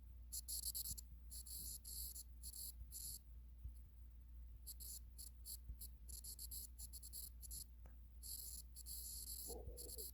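A pen scratching on paper in irregular runs of short strokes with pauses between them, over a steady low hum.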